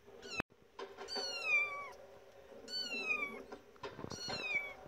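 Maine Coon kitten meowing: a brief call near the start, then three long, high calls, each falling in pitch, about a second and a half apart.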